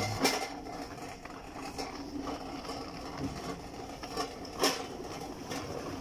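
Shop background noise with a faint steady hum and two sharp clicks, one just after the start and a louder one about two-thirds of the way through.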